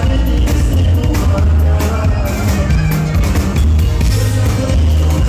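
Live norteño band playing an instrumental stretch of a corrido through a PA: button accordion and guitars over a heavy bass line.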